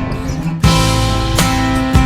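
Background music: a guitar-led track, with a louder, fuller strummed section coming in about half a second in.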